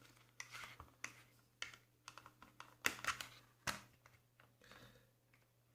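Faint, irregular clicks and taps of plastic switch and trim parts being handled and unclipped, with two sharper clicks about three and four seconds in.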